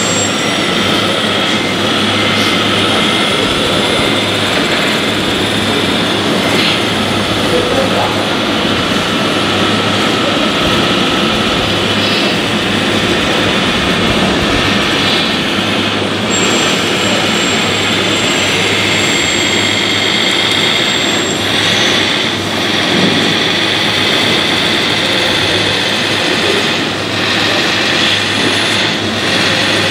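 Steady electric whine of a radio-controlled MAN 8x8 tipper truck's hydraulic system as it raises its half-pipe bed and tips out a load of soil, over the hum of other model machinery.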